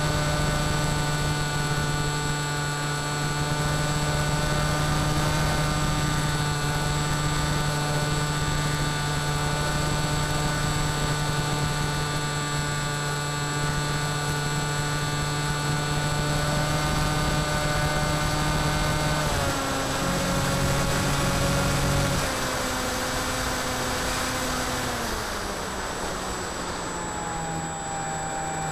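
Electric motor and pusher propeller of an FX-61 Phantom flying wing, heard through its onboard camera: a steady buzzing whine over rushing wind. Its pitch steps down about three times in the last third as the throttle is eased back.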